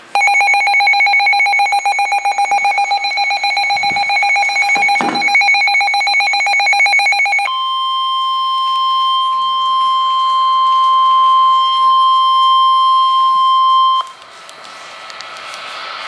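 Midland weather radio sounding its alert for an incoming flash flood warning: a fast-pulsing two-tone electronic beep for about seven seconds, then the NOAA Weather Radio warning alarm, one steady high tone, for about six seconds until it cuts off suddenly.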